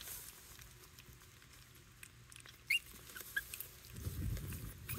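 Pomeranian puppies chewing and crunching dry kibble from a plastic bowl, with small scattered clicks. A few short high squeaks come just past the middle, and a low rumble near the end.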